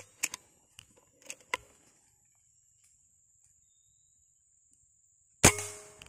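A Killua 160 MMQ PCP air rifle fires a single shot about five and a half seconds in: one sharp report that dies away within about half a second. A few light clicks come in the first two seconds before it.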